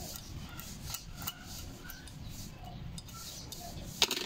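Small metal clicks and rubbing as a valve spring compressor and valve keepers are worked on a Yamaha Sniper 150 motorcycle cylinder head, with one sharp metallic click about four seconds in.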